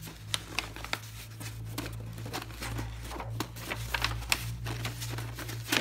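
Brown kraft packing paper and printed cards rustling and crinkling as a hand moves them inside a cardboard box, in quick scattered crackles over a low steady hum.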